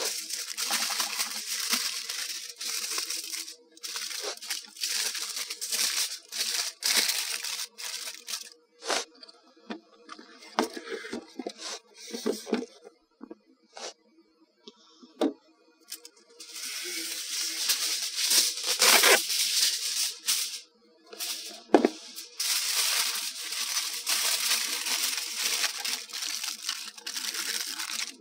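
Aluminium foil crinkling and crumpling as it is folded and wrapped around a rack of cooked ribs, in long bursts with a quieter stretch of scattered clicks and taps in the middle.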